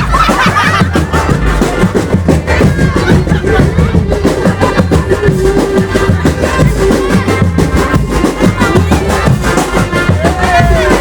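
Loud music with a steady drum beat and a wavering melody line.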